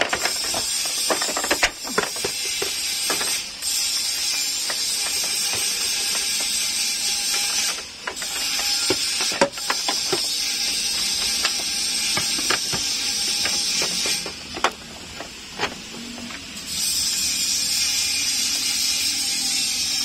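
Scattered metal clicks, knocks and rattles of the power-window regulator cable and door hardware being handled inside an Isuzu Forward truck door, over a steady hiss.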